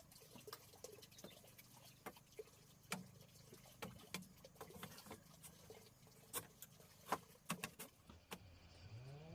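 Faint, irregular clicks and taps, a few louder ones in the second half, over a low steady hum.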